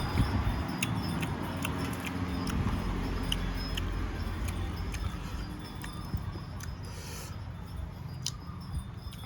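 Close-up eating sounds: chewing with scattered small clicks and crunches over a low rumble.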